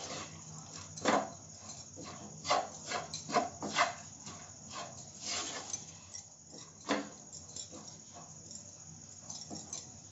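A spatula scraping and knocking against a nonstick frying pan as cooked rice is stirred and turned over, in irregular strokes with a few sharper knocks.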